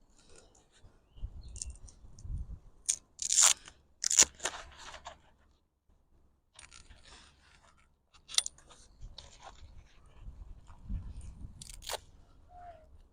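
Pop-up canopy being handled: its fabric rustles and crunches, with several sharp clicks and snaps as the frame's joints are pressed up and lock into place, the loudest cluster a few seconds in.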